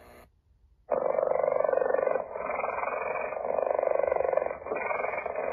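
Recorded cheetah call played back through a tablet's small speaker: a continuous rasping sound that starts about a second in and runs in three long stretches with brief dips between them.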